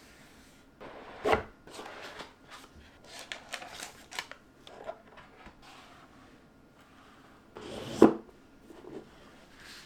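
Phone box and packaging being handled during an unboxing: rustling, light clicks and scraping, with two louder knocks, one about a second in and one near the end.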